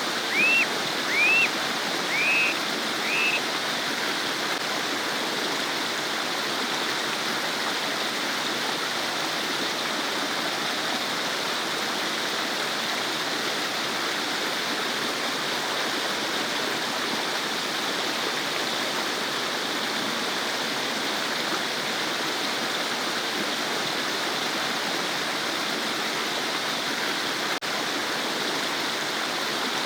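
A babbling stream, water running and gurgling steadily over stones. Four short high chirps sound in the first few seconds.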